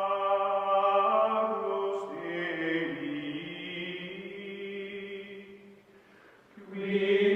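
Background music of long, steady held tones like a chanted drone, fading almost away about six seconds in and swelling back up near the end.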